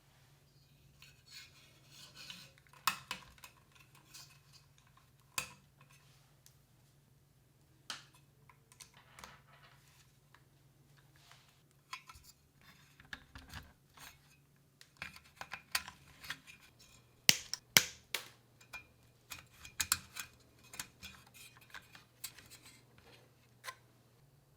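Computer parts being handled and fitted by hand: irregular clicks, taps and light clinks with short rustles. The sharpest clicks come about two-thirds of the way through.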